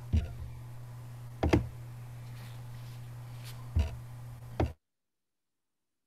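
Open video-call microphone carrying a steady low hum and about five short knocks and thumps, the first just after the start and the rest over the next few seconds. The sound cuts off abruptly to silence shortly before the end.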